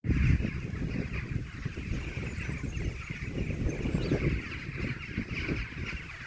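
A large flock of rooks cawing together in a dense, continuous chorus, with a gusty low rumble underneath.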